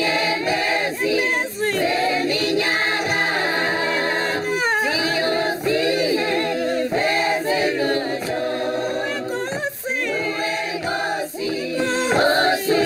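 Unaccompanied choir singing, several voices at once.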